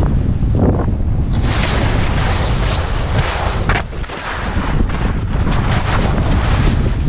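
Heavy wind buffeting the camera microphone during a fast ski descent, with the skis hissing and scraping over firm, wind-packed snow through the turns. The noise eases briefly about four seconds in.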